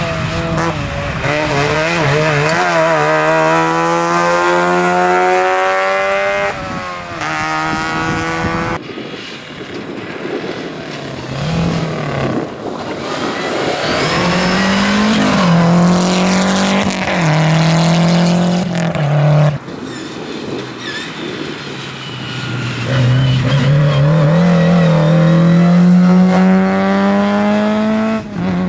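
Rally car engines revving hard under acceleration, the pitch climbing and dropping sharply again and again as they shift up through the gears, with quieter gaps between runs.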